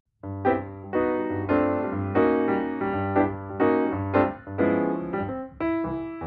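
Background music: piano chords over a steady bass line, about two chords a second, starting just after a moment of silence.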